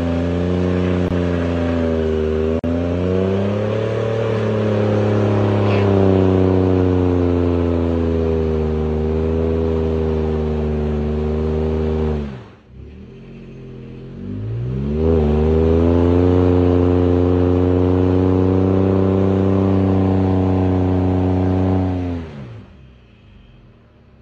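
Ford Raptor pickup engine held at high revs while the wheels spin in mud. It is let off about twelve seconds in, revved up again a few seconds later, held, and let off near the end.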